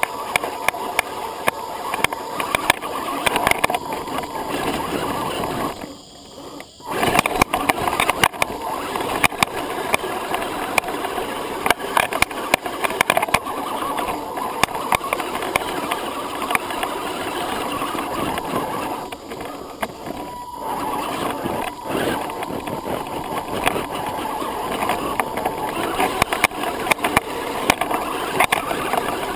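Axial SCX10 Honcho 1/10-scale electric RC crawler driving over rocks and dirt, heard from a camera mounted on the truck: a steady whine of motor and gears with frequent clicks, knocks and rattles of the tyres and chassis on stones. The drive stops briefly about six seconds in, then picks up again.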